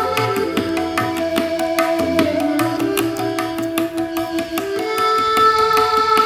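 Background music of Indian style: tabla-like hand drums playing a steady rhythm under sustained plucked-string and drone tones.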